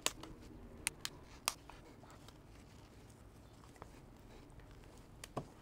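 Side cutters snipping and prying at the plastic casing of a small chemical gas sensor: a few sharp plastic clicks and snaps, a cluster in the first second and a half and another pair near the end.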